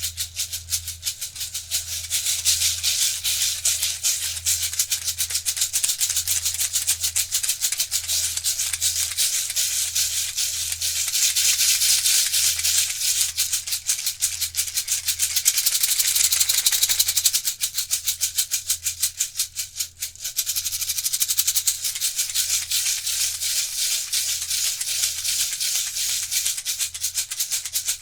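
Water Circle circular rain stick shaken as a shaker: a rhythmic rattle that thins out briefly about two-thirds of the way through, then picks up again.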